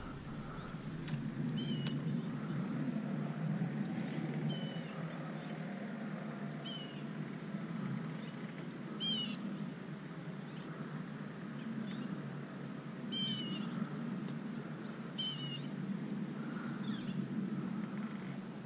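A bird calling repeatedly: about eight short, high calls, each sliding downward in pitch, a second or two apart, over a steady low hum.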